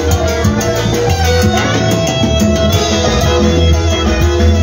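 Live tropical dance band music: saxophones over electric bass and drums, with a steady dance beat.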